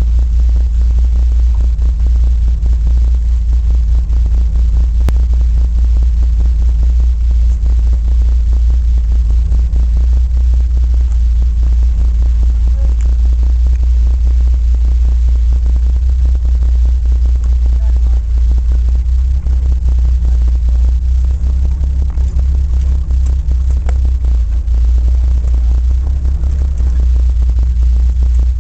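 A vehicle engine running steadily at low revs, its sound deep and continuous, with faint scattered clicks over it.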